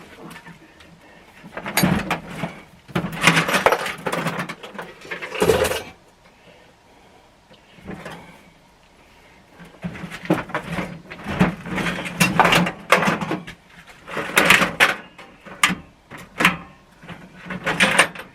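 Metal hand tools clattering and clanking as they are handled and set down, in irregular bunches with short pauses between them.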